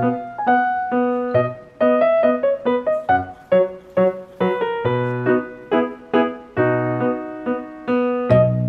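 Background music: a piano tune of short, separate notes played at an easy pace.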